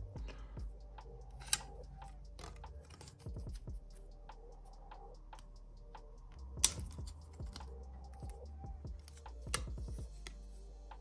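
Plastic clips and tabs on a Honda Civic EK instrument cluster's black bezel being worked loose by hand: a run of small plastic clicks and ticks with three sharper snaps, about a second and a half in, past the middle, and near the end, the middle one the loudest.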